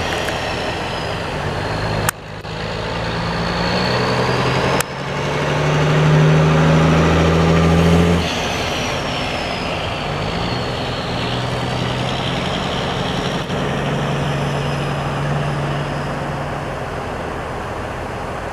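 Diesel engine of a loaded semi log truck pulling away and accelerating. The sound drops off sharply about two and five seconds in and builds again each time, as between upshifts. It then rises in pitch and settles to a steady run as the truck passes.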